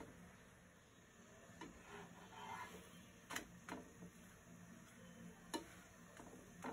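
Faint, sharp taps of a metal slotted spatula against a nonstick frying pan as a laccha paratha is pressed and shifted, about five clicks a second or two apart over a faint low hum.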